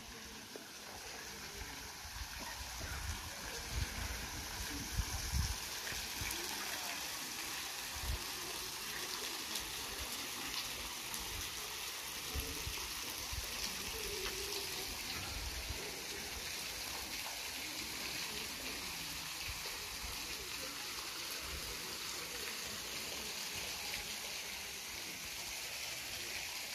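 Steady rush of flowing water, with wind buffeting the microphone in low thumps during the first several seconds.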